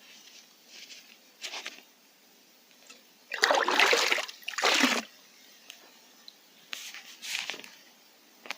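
A cooking pot dipped into lake water, sloshing and splashing as it fills, in two loud scoops about three and a half seconds in. A few softer scuffs come before and after.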